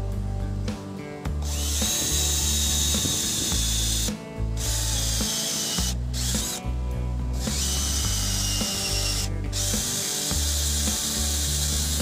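Makita cordless drill running in four bursts of two to three seconds each, starting about a second in, with a high motor whine that dips slightly in pitch during the first run. Background music with a steady bass line plays underneath.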